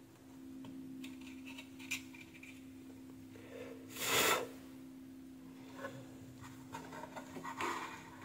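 Light handling noise of wires and a soldering iron at a workbench during soldering: small taps and rustles over a steady low hum, with a short hiss about four seconds in and a softer one near the end.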